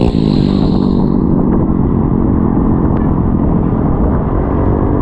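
Riding noise from a moving motorcycle on a wet road: steady wind rumble on the action camera's microphone over the engine and tyres. A pitched engine note fades out about a second in.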